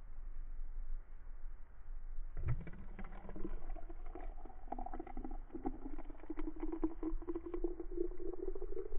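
Just-boiled water poured from a camping pot into the Cafflano Kompresso's clear plastic chamber over coffee grounds, starting about two and a half seconds in. It splashes and gurgles with a tone that slowly rises as the chamber fills.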